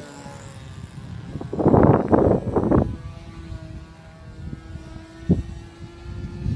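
Faint, steady drone of a Carl Goldberg Tiger 2 radio-control model airplane's engine and propeller flying high overhead. About two seconds in, a loud rush of wind noise hits the microphone.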